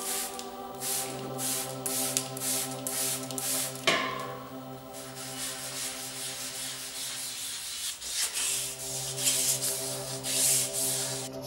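Hand rubbing along the tubes of a painted bicycle frame: quick back-and-forth strokes, about two or three a second, then more continuous rubbing from about five seconds in, with a sharp click near four seconds. Soft background music with held notes plays underneath.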